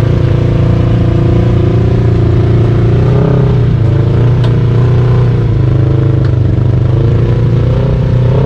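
Can-Am Outlander XMR 850's V-twin engine running through a slip-on exhaust while riding, its pitch wavering up and down a little with the throttle.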